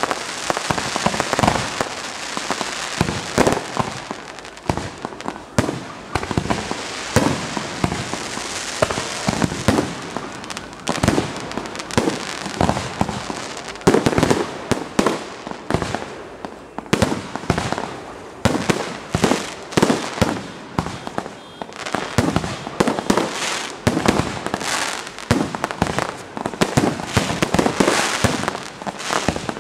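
Fireworks going off in a rapid, continuous run of sharp bangs and crackles over a steady hiss, with no break.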